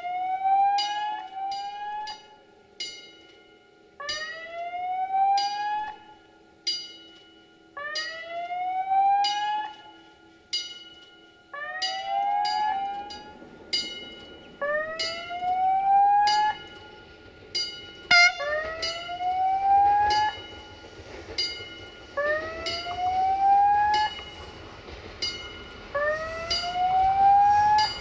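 Railway level-crossing warning signal sounding a repeating rising electronic tone, each rise about a second and a half long, sometimes in quick pairs. From about halfway through, the low rumble of an approaching train builds beneath it.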